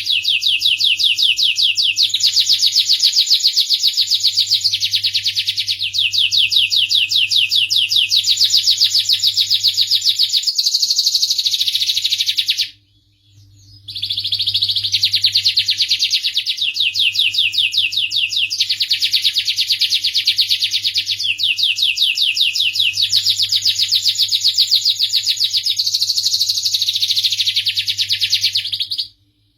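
Domestic canary singing a long, nearly unbroken song of fast rolling trills, cutting off abruptly for about a second roughly 13 seconds in and again near the end. A faint steady low hum lies underneath.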